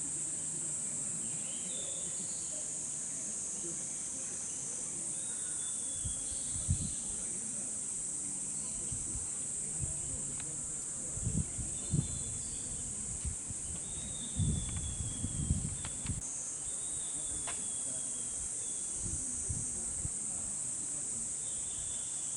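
A chorus of cicadas shrilling as a steady, high-pitched drone, with a brief dip about two-thirds of the way in where the looped recording joins. A few low thuds come in the middle, and faint short descending calls sound now and then.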